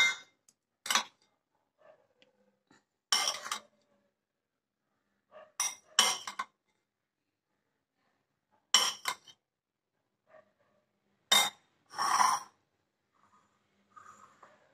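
A metal spoon clinks and scrapes against a ceramic bowl and mug as boiled sweet corn kernels are spooned from one into the other. There are about seven separate clinks, a second or two apart.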